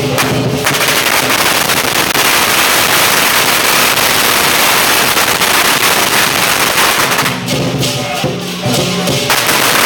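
Strings of Chinese firecrackers going off in a rapid, continuous crackling barrage. The barrage breaks for about two seconds near the end, letting lion dance music show through, then starts again.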